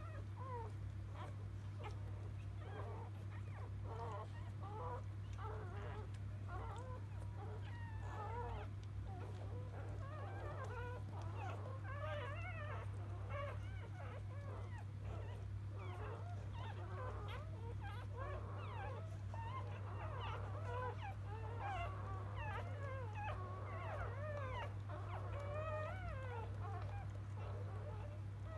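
Newborn Labrador Retriever puppy squeaking and whimpering almost continually in short rising and falling squeals, over a steady low hum.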